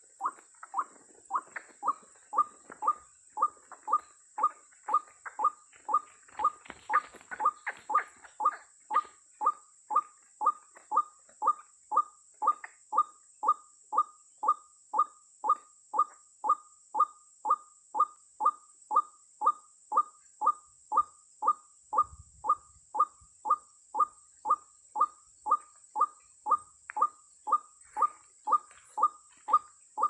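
White-breasted waterhen (ruak-ruak) calls: a short note repeated very evenly, about twice a second, in the manner of the recorded lure call used to draw waterhens to a snare. Some rustling mixes in a few seconds in.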